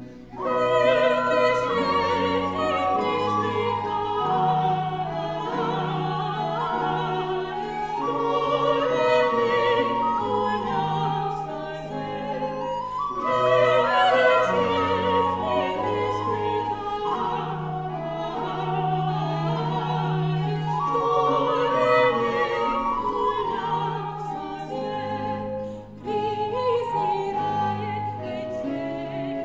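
Classical music: operatic singing with vibrato over an orchestral accompaniment with a steady bass line. The music swells in about half a second in and drops away briefly near the end before resuming.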